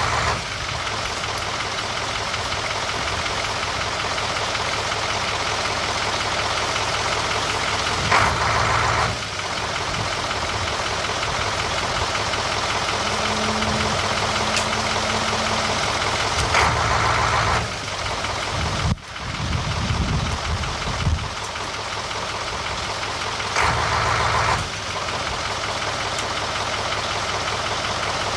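Utility truck engine running steadily, with three brief louder surges, each about a second long and spaced roughly seven to eight seconds apart.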